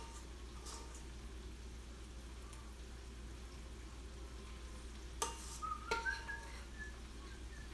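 Chicken frying quietly in a skillet on the stovetop, a soft steady sizzle. A couple of sharp clinks come about five seconds in.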